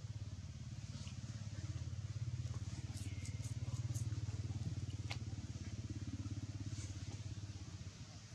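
A steady low engine hum with a rapid even pulse, running on throughout, with a few faint sharp clicks about three to five seconds in.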